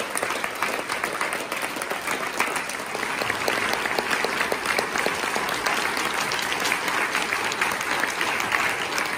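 A large audience applauding, many hands clapping at once in a dense, steady patter.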